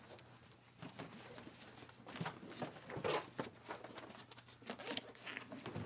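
Rustling and scattered knocks of a backpack and papers being handled and packed, in a series of short irregular bursts, busiest about three seconds in.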